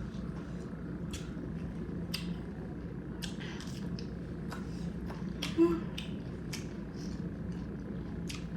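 Close-up eating sounds: chewing and wet lip-smacking clicks at an irregular pace, with one short louder sound a little past halfway, over a steady low hum.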